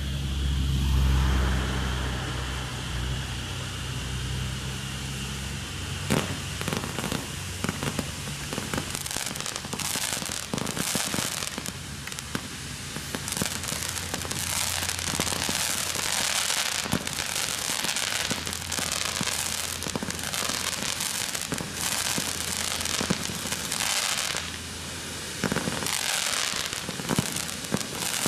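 Low-noise fireworks: ground fountains hiss, then from about six seconds in there is dense crackling and many small pops as small aerial effects go up. A low steady hum underlies the first six seconds and then stops.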